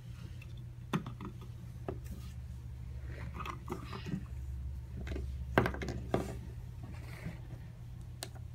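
Plastic toy figures and a plastic toy car being handled on a wooden tabletop: a few light clicks and taps, one about a second in and two more past the middle, with faint scraping between them, over a low steady hum.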